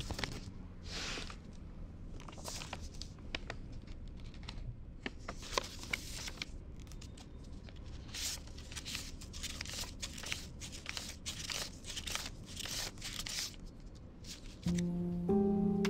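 Paper being handled: irregular short rustles and crinkles, with some sounding like tearing. Music with held low notes comes in near the end.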